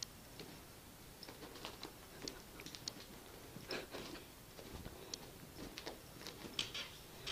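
Faint, scattered light taps and soft thumps of cats scampering and pouncing on carpet.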